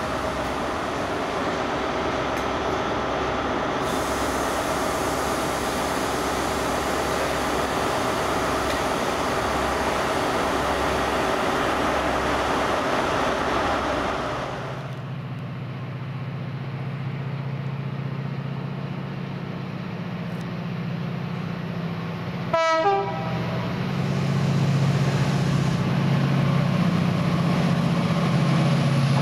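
A Class 68 diesel-electric locomotive's Caterpillar V16 engine running with a steady multi-tone hum and whine. Its sound gives way about halfway through to a deeper steady drone of an approaching diesel train. There is one short, loud horn blast a few seconds later, and the train grows louder as it nears.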